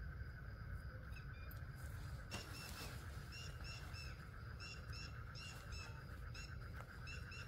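Faint bird calls: runs of short, quick high chirps starting a couple of seconds in, over a steady high whine, with one soft knock just before the chirps begin.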